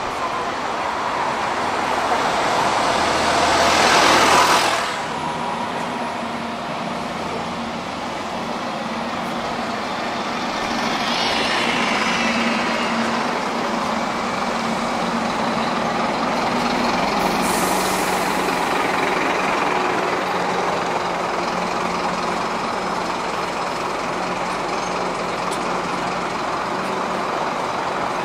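Double-decker buses running in street traffic, engines humming steadily. A loud air-brake hiss builds and cuts off suddenly about four to five seconds in, with a fainter hiss near twelve seconds and a short sharp one near eighteen.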